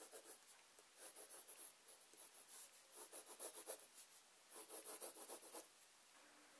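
Pencil scratching on paper: faint, in several runs of short, quick strokes as a line is drawn.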